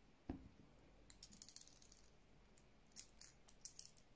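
Faint, scattered small clicks and taps of metal as a small holed metal plate and blind rivets are handled in the fingers.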